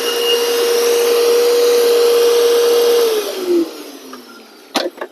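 Electric air blower running at full speed, then switched off about three seconds in and winding down over about half a second. Two sharp knocks follow near the end.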